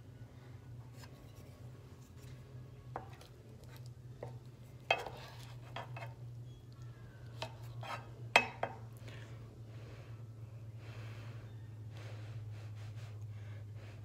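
A wooden spoon knocking and scraping in a nonstick electric skillet while food is served: scattered sharp knocks and clinks, the loudest about five seconds in and again about eight and a half seconds in, over a steady low hum.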